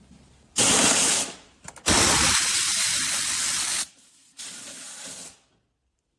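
Three bursts of loud hissing, like a spray jet; the middle burst is the longest, about two seconds.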